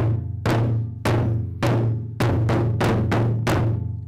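Taiko barrel drums struck with wooden bachi: about nine deep, booming strokes that ring on, evenly spaced at first and quicker near the end, the last one left to ring out.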